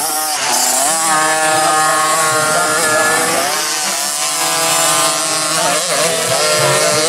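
Engines of 50cc two-stroke youth motocross bikes revving high as the riders pass. The pitch climbs in the first second, holds, then falls and rises again with the throttle.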